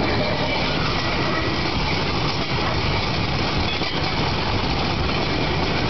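Small motorised narrow-gauge rail trolley running along the track, its engine and wheels making a steady, loud running noise, heard from on board.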